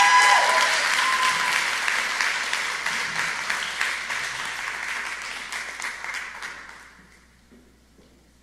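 Audience applauding, with a few high-pitched cheers at the start. The clapping thins out and dies away about seven seconds in.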